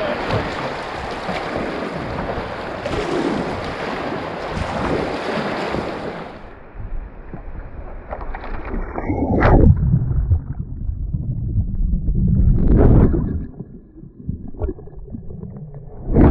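Rushing whitewater around a kayak for about the first six seconds. The sound then turns muffled, with low splashes and sloshing from paddle strokes against the hull, and a sudden loud splash near the end as the kayak tips over into the water.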